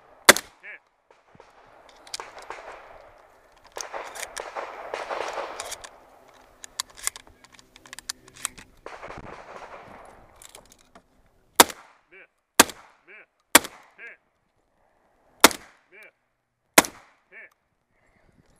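Six close gunshots: one just after the start, then a string of five later on, about a second apart. Most are followed about half a second later by a fainter ping of a steel target being hit. Rustling and handling noise fills the gap between the first shot and the string.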